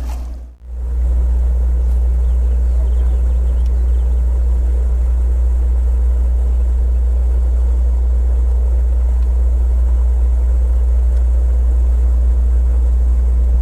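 Boat running across the water: a loud steady low rumble of wind on the microphone over the engine's hum, starting after a brief dip about half a second in.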